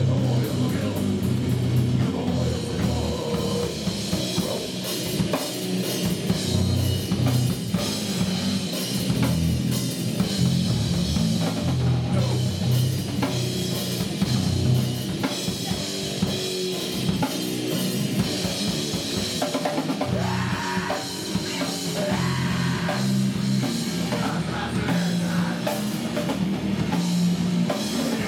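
Grindcore band playing live: electric guitars and a drum kit at full volume, a dense, unbroken wall of sound.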